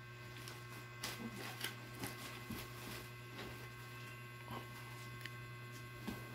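Faint rustling and soft crinkling of clothes and plastic bale wrapping being handled, with a few scattered small clicks, over a steady low hum.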